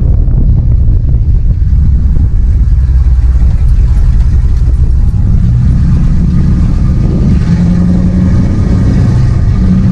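Ford F-150 pickup's engine and loud aftermarket exhaust droning while the truck is driven, the pitch rising a little about seven seconds in as it pulls harder.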